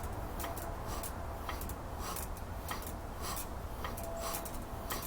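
Light, irregular clicking, two or three clicks a second, from hands-on work on the Briggs engine's exposed valvetrain with its valve cover off, over a steady low hum.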